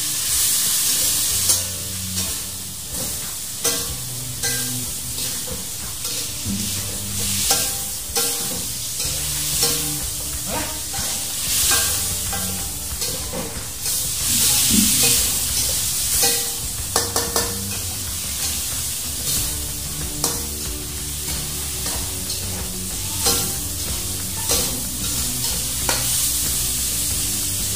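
A spatula scrapes and clicks against a wok as fish is stirred in sauce, over a steady high sizzle of frying.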